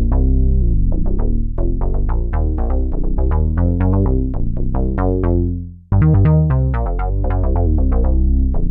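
Sequential Prophet-6 analogue polyphonic synthesizer playing a factory preset: a quick run of short plucked notes over a heavy bass line. The sound fades out just before six seconds in, then starts again sharply with a fresh pattern.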